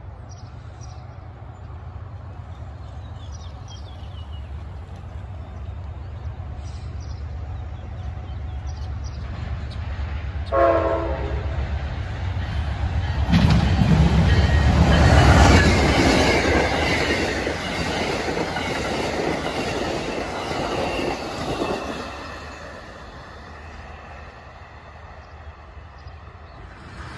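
Amtrak passenger train led by a GE Genesis diesel locomotive, approaching with a rumble that builds steadily. The horn sounds one short blast about ten seconds in. The train then passes close by with loud engine and wheel noise for several seconds, loudest a few seconds after the horn, and fades as it moves away.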